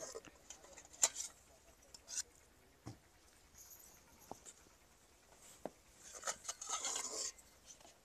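Steel ladle scraping and tapping against a steel cooking pot and steel plates while cooked semolina is served out: scattered light clicks, the sharpest about a second in, and a longer scrape near the end.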